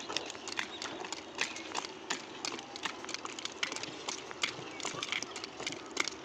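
Quad roller skates rolling on concrete, the wheels rumbling steadily under an irregular clatter of clicks and knocks from the children's strides.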